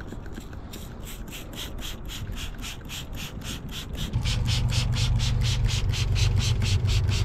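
Trigger spray bottle squirting soapy water onto a car tyre in quick repeated sprays, about five a second, as a leak test to find a puncture. A steady low hum joins about four seconds in.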